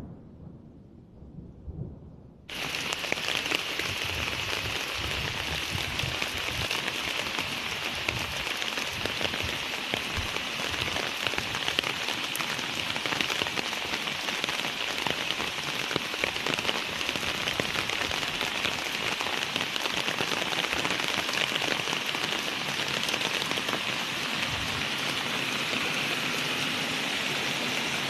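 Heavy rain pouring down in a dense, steady hiss that starts abruptly about two and a half seconds in, after a short stretch of low rumbling.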